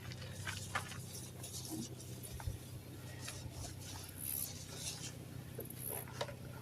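Tire-mounting soap being brushed onto a tire bead: a run of short, irregular scratchy strokes over a steady low hum.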